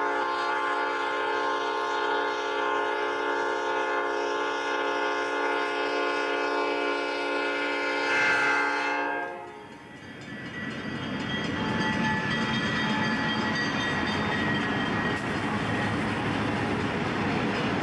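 Chicago and North Western diesel locomotive's air horn sounding one long chord blast at a road crossing, with a brief shift in pitch as it passes just before cutting off about nine seconds in. The train's rumble and wheel noise then swell and carry on as it rolls by.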